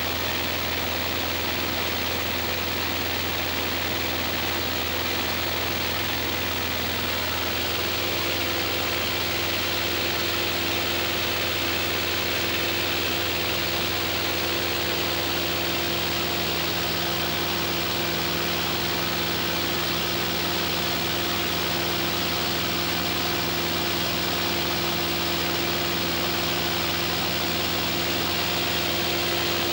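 Cessna's piston engine and propeller running steadily in flight, heard from inside the cabin as an even drone with wind rush. A steady hum in it grows a little stronger about a quarter of the way through.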